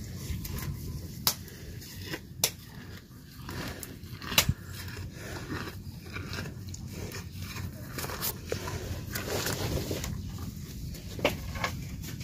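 A cow chewing and tearing at green fodder, with crunching and a few sharp clicks over a low steady rumble.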